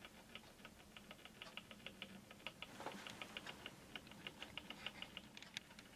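Faint, rapid clicking, about five to eight clicks a second, over a faint low hum: the small electric motor and gear train of a restored flip clock running.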